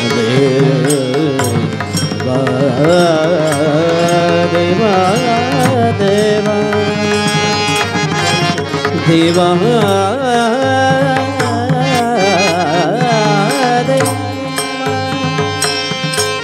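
Marathi devotional kirtan singing: men's voices holding long, wavering melodic lines, accompanied by brass hand cymbals (taal) struck in a steady rhythm over a steady instrumental backing.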